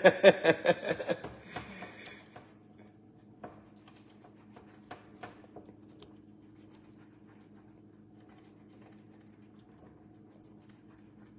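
A man's voice trails off in a chuckle in the first second or so. Then comes a faint steady hum with a few scattered light clicks and taps as thick pudding is whisked in a stainless-steel pot on an electric stovetop.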